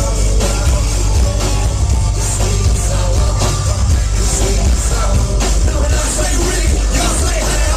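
Live rock band playing loud: electric guitar, bass and drums, dominated by heavy low bass.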